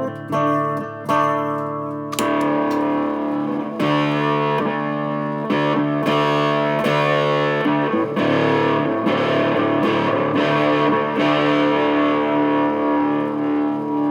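Electric guitar played through a silicon fuzz pedal, an Astrotone-circuit prototype biased for 2N3566 transistors. A few picked notes come first, then from about two seconds in there are heavily fuzzed, sustained chords struck every second or two.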